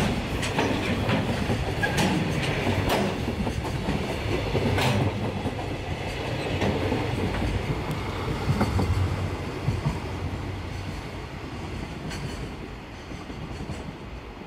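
Freight train rolling past, its wagon wheels clicking over the rail joints now and then over a steady rumble. The sound grows fainter over the last few seconds.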